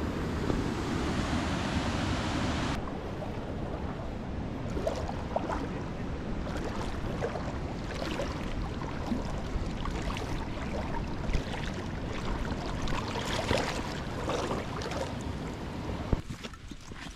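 Running water with scattered light clicks over it. The sound changes abruptly about three seconds in and drops in level near the end.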